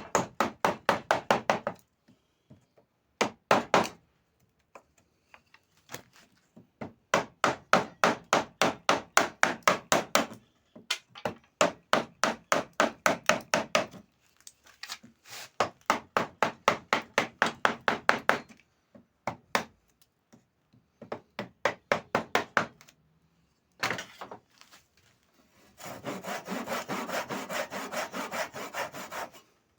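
A hand tool worked back and forth on wood in fast strokes, about six a second, in bursts of a few seconds with short pauses between them. Near the end the strokes become a denser, continuous scraping.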